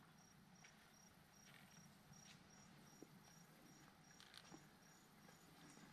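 Quiet woods with faint insects chirping: an even, high chirp about two to three times a second, with a second, slightly higher chirper joining about two seconds in.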